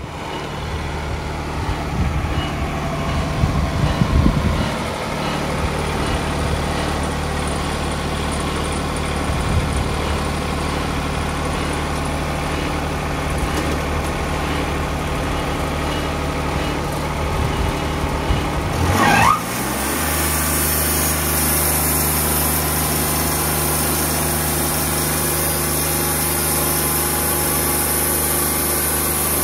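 Engine of a Wood-Mizer portable band sawmill running steadily, with some low thumps in the first few seconds. Just after two-thirds of the way through its pitch sweeps and it settles into a different steady running note with a high hiss added.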